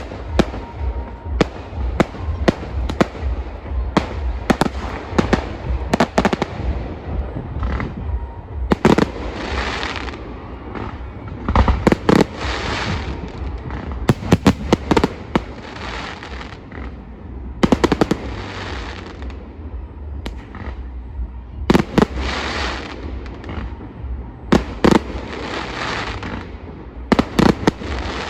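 Fireworks display: a continual run of sharp bangs, with bursts of crackling and hissing every few seconds as shells break overhead.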